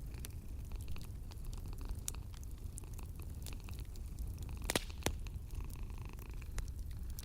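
Wood fire crackling with scattered sharp pops, two louder ones close together just before five seconds in, over the low steady purring of a sleeping cat.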